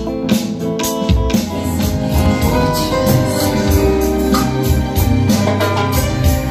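Live band playing an instrumental passage, with sustained keyboard chords over a steady beat.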